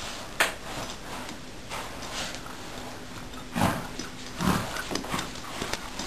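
A small dog scuffling at a fabric pet bed, pawing and tugging it across a rug with a cat inside. There is a sharp click about half a second in and two duller thuds a little past the middle.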